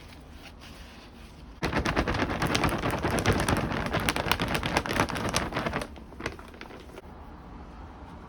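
Potting soil poured from its bag into a pot: a dense crackling patter of grains and bag rustle that starts suddenly about a second and a half in and stops about four seconds later.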